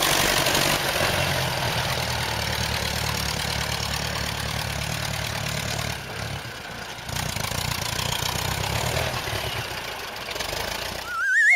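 Tractor engine sound effect running steadily. It dips in level about six seconds in, then comes back. Near the end a rising, warbling whistle-like cartoon sound effect starts.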